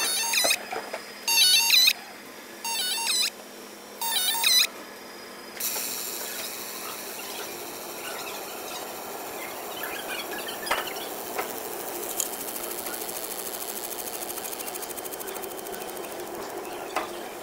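Fiber laser marking head buzzing as it frosts a pattern into a mirror: four short high-pitched buzzing bursts in the first five seconds, then a steady high whine with hiss and a few sharp clicks.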